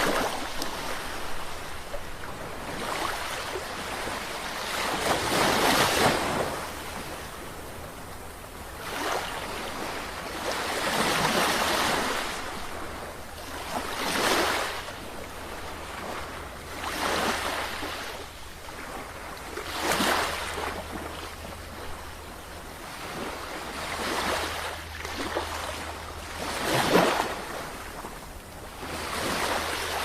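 Sea waves breaking and washing in, one after another, roughly every three seconds. Each wash swells and fades over a low steady rumble.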